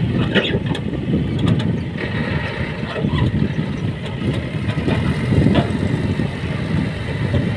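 Diesel engines of a John Deere 5050D and a Mahindra 475 tractor running hard as they try to haul a loaded trolley stuck in wet river sand.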